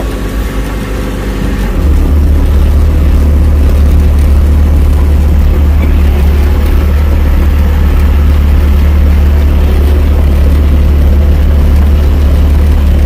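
Diesel engine of a tracked heavy machine running close up. About two seconds in it picks up to a louder, steady rumble as the machine is driven.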